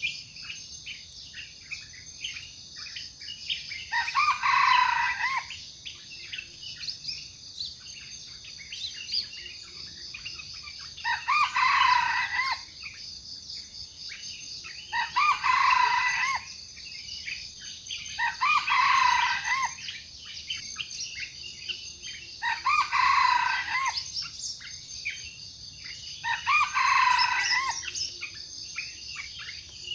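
Wild junglefowl crowing, six calls of about a second and a half each at intervals of roughly four seconds. A steady high insect drone and small bird chirps run beneath.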